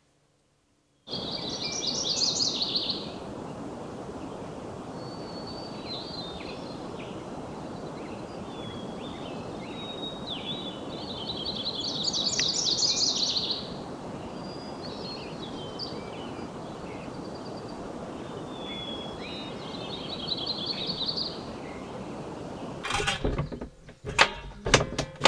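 Songbirds singing over a steady rushing outdoor background, one bird repeating a trilled phrase three times with shorter chirps in between. Near the end a few sharp knocks and clicks as the truck camper's roof vent is worked open.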